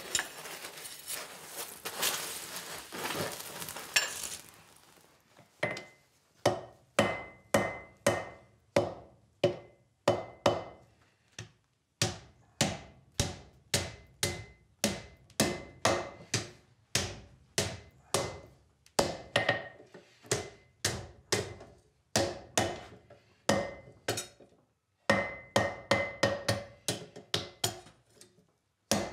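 A coal forge fire rushes and crackles for the first few seconds. Then a hand hammer strikes a red-hot flat iron bar on the anvil, bending it over the anvil's edge into an angle. The blows come about two a second in runs with short pauses, each with a brief metallic ring.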